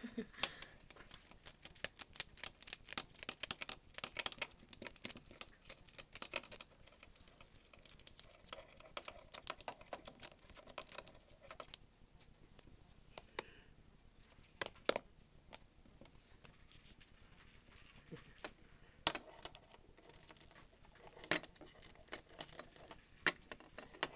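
Syrian hamster gnawing on a pen: quick runs of sharp little clicks of teeth on the pen, thick for the first several seconds, then sparser with a few louder single clicks.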